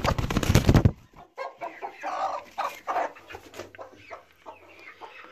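A broody hen clucking softly and grumbling on her nest as her eggs are handled. A loud rustle in the first second is the loudest sound.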